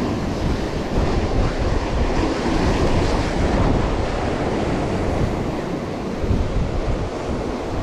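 Ocean surf breaking and washing over shoreline rocks, a steady rushing wash that swells now and then, with wind buffeting the microphone as a low rumble.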